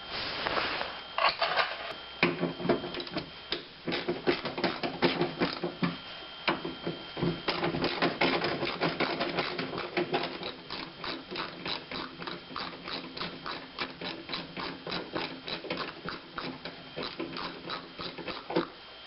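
Ratchet clicking in quick, steady runs of many clicks a second, pausing briefly now and then.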